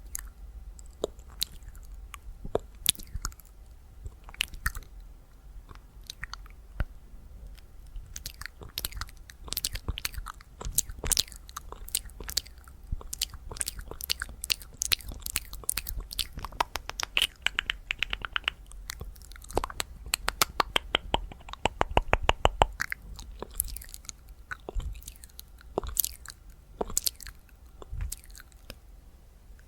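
Close-miked ASMR mouth sounds: fast wet clicks and smacks of the tongue and lips, scattered at first, then in quick runs of many clicks a second from about 17 to 23 seconds in.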